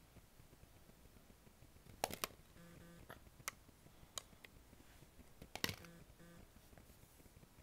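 Scattered sharp clicks of hard plastic toy fruit pieces knocking together as they are handled, a close pair about two seconds in and another about five and a half seconds in. Faint short pitched beeps come twice in pairs between them.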